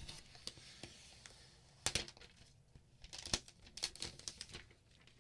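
Thin clear plastic protective film being peeled off the back of an iPad: faint crinkling with scattered sharp crackles, the loudest about two seconds in and again about three and a half seconds in.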